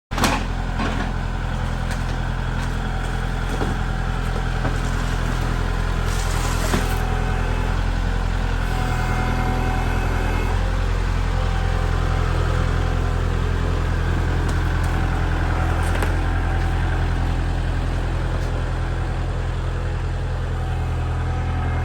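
A truck engine running steadily with an even low drone, with a few brief clanks and rattles along the way.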